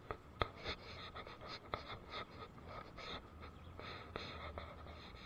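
Fast-flowing river water rushing over small rapids, with irregular sharp clicks and scratchy sounds over it.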